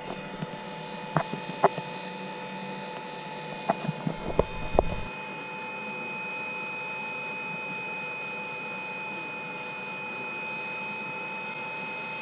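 Hot-air soldering rework station running steadily, its blower giving a constant hum with a fixed whine. A handful of sharp knocks and clatters come in the first five seconds, from handling at the bench.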